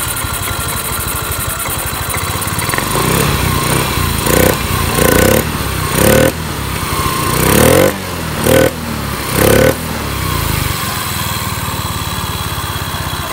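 Yamaha Mio 125 scooter's fuel-injected single-cylinder engine running at idle, then revved in about six short blips before settling back to idle. It picks up without stuttering, running normally now that the corroded TPS ground wire has been replaced and the throttle position sensor reset.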